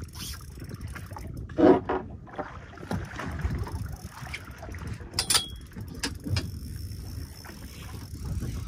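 Water and wind noise around a small fishing boat, a steady low wash broken by a few short knocks, the loudest under two seconds in. A brief high squeak comes a little after five seconds.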